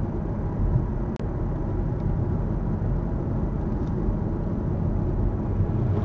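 Steady low rumble of a car's road and engine noise heard inside the cabin while cruising at highway speed, with a brief click about a second in.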